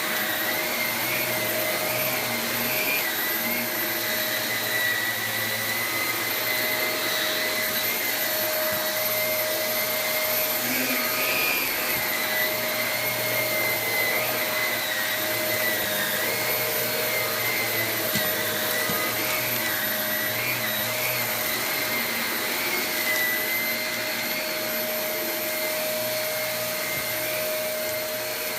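Shark Navigator swivel upright vacuum cleaner running steadily as it is pushed about, a constant motor whine and rush of air whose pitch wavers slightly as it moves.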